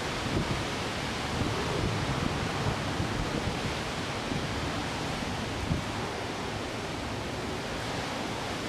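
Strong wind of an approaching typhoon blowing steadily as a dense rushing noise, with irregular low rumbling gusts buffeting the microphone.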